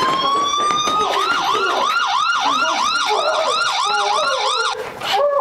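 Siren sounding: a slow rising wail that switches about a second in to a fast yelp of about three to four whoops a second, which stops shortly before the end.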